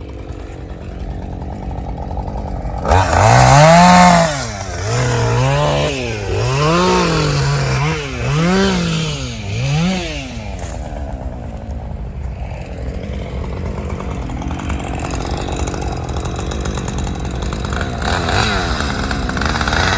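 Chainsaw engine revving up and down several times, then running steadily before revving again near the end.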